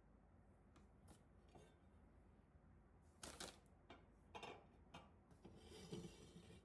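Near silence with a few faint, short clicks and rustles, most of them in the second half.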